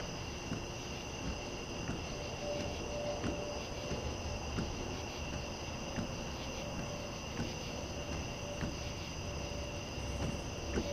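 A steady insect chorus of crickets, a constant high-pitched trilling, with a faint low rumble underneath.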